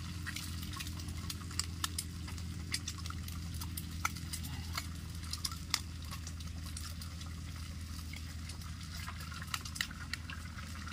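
Eggs being cracked one after another into a hot pan of frying onion-tomato masala: scattered sharp clicks of shell on the pan's edge over a steady sizzle and low hum.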